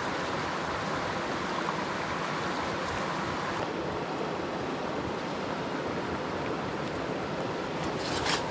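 Steady rushing of a shallow mountain creek flowing over stones, with a short sharp scuff near the end.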